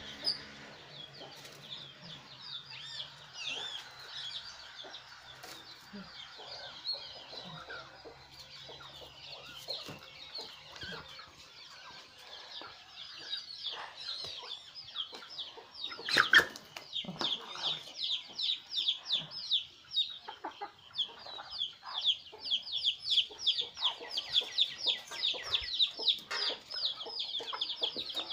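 Chicks peeping in a steady run of short, high chirps that grow louder and quicker in the second half, with one sharp, loud sound about sixteen seconds in.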